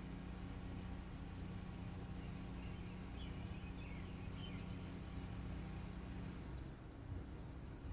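DC fast charging station humming steadily while it charges an electric car at about 117 amps, with a low tone over a noise bed. The hum drops away briefly near the end. A few faint bird chirps come about three seconds in.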